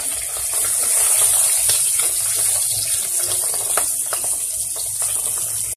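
Fish pieces sizzling in hot oil in a kadai: a steady high hiss with a few sharp crackles as a spatula turns them to fry on every side.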